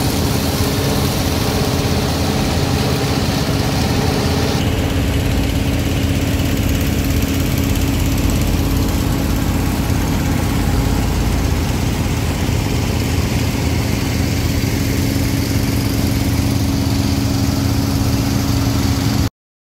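Small petrol engine of a portable dewatering pump running steadily at constant speed, with water gushing from its discharge hose. The sound stops abruptly near the end.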